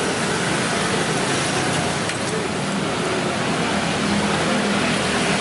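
Steady traffic noise: an even rush with a faint low hum underneath.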